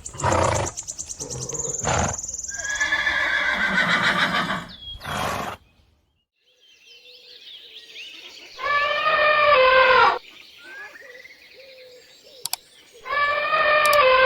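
A horse whinnying and calling over the first few seconds. After a short gap, a different animal gives two drawn-out pitched calls about four seconds apart.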